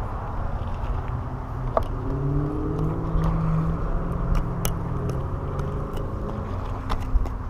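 Road traffic on a bridge: a steady rush of passing cars, with an engine hum coming in about two seconds in and a few sharp clicks.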